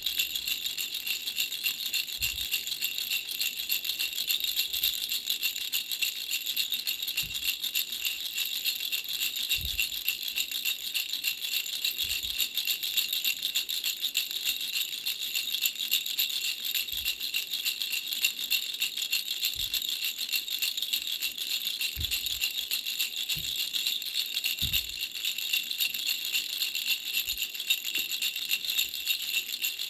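Baby bell rattle (a three-flower bell rattle) shaken continuously: a steady, rapid, high-pitched jingling of small bells. A few soft low thumps come in here and there.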